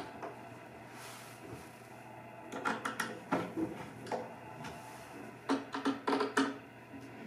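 Screwdriver turning the cam-lock fittings of a flat-pack storage cabinet: two clusters of small clicks and knocks against the cabinet panel, about two and a half seconds in and again about five and a half seconds in.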